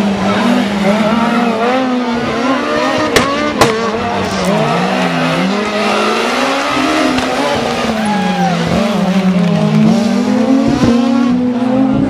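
Rally car engine revving hard and letting off again and again, the pitch rising and falling as it drives through tight turns. Two sharp bangs about half a second apart come a little past three seconds in.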